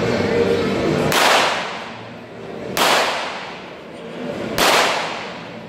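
Three cannon shots from model galleons in a mock battle, each a sharp bang about a second and three quarters apart, ringing out in a long echo through the large hall. A low crowd murmur is heard before the first shot.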